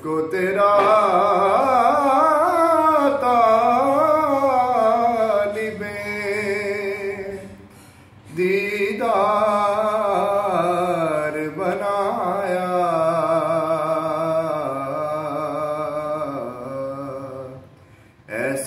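A man reciting a naat, an Urdu devotional poem, solo: one voice sings long, wavering melodic phrases, breaking off for a breath about halfway and again near the end.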